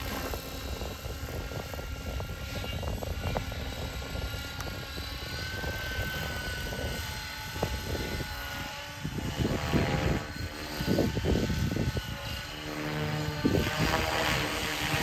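Align T-Rex 550 electric radio-controlled helicopter in flight: a steady whine from its motor and drive, over the whoosh of its rotor blades. In the second half the sound swells and fades several times.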